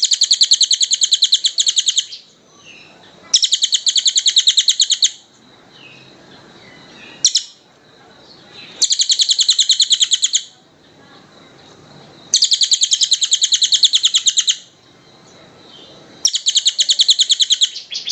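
A songbird's rapid, tight trill, a fast run of about ten high notes a second, sung in five bursts of about two seconds each at regular intervals, with one short single note between the second and third bursts.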